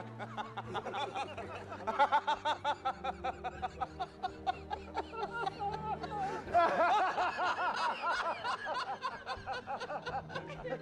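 Men laughing hard in quick runs of repeated ha-ha pulses. A louder, denser laugh breaks in about six and a half seconds in.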